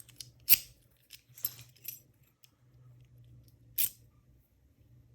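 Sharp metallic clicks and clinks from handling a heavy lock and its large keys. The loudest comes about half a second in and another about four seconds in, with a few lighter clicks between.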